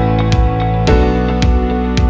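Background music: a soft, guitar-led instrumental with a steady beat and regular chord changes.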